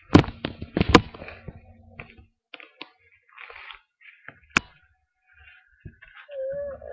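A few sharp knocks and bumps with rustling handling noise, the loudest knock about four and a half seconds in. A short wavering tone starts near the end.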